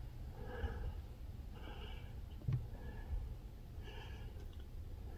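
Quiet room with a low steady hum and faint breathing sounds close to the microphone, with one soft knock about two and a half seconds in.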